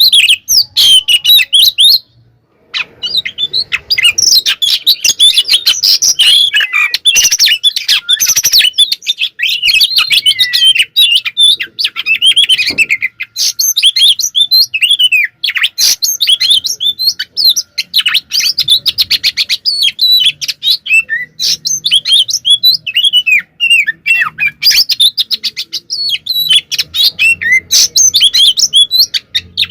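Oriental magpie-robin (kacer) singing a long, nearly unbroken song of fast whistles, trills and harsh chattering notes, with a short pause about two seconds in. It is the agitated 'fighting' song that keepers play to provoke other kacer into singing back.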